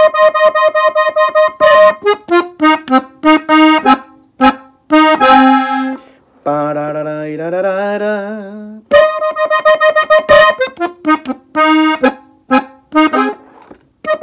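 Gabbanelli button accordion playing a slow demonstration of an ornamental run in E-flat on the treble buttons: quick repeated staccato notes in short bursts, with a few seconds of held, wavering tones in the middle.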